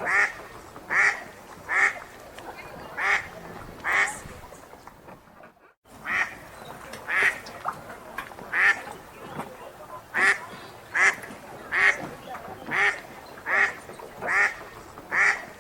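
Ducks quacking in a steady series, about one quack every three-quarters of a second, with a short break about five seconds in before the quacking resumes.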